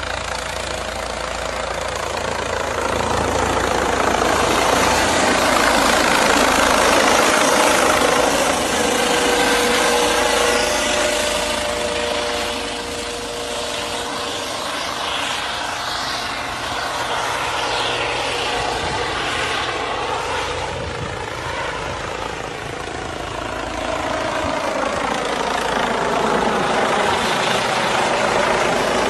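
Police helicopter flying low overhead: loud, steady rotor and turbine noise that swells and eases as it moves, its whine gliding in pitch as it passes.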